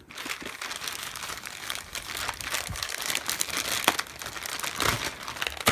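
Packaging crinkling and rustling as a parcel is handled and pulled at by hand, with a few sharper crackles about four and five seconds in.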